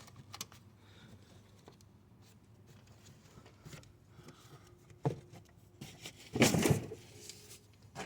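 Hands working loose a plastic HVAC ventilation housing from the body: a few faint clicks, one sharp knock about five seconds in, then a short scraping rustle of plastic a little after six seconds.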